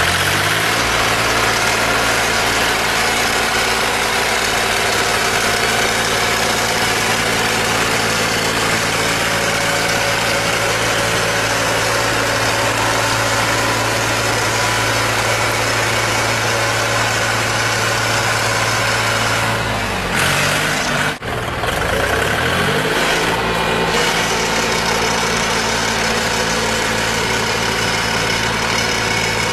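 Tractor engine running steadily while driving a power-driven disc plough. About two-thirds of the way through, the engine speed briefly sags and then comes back up.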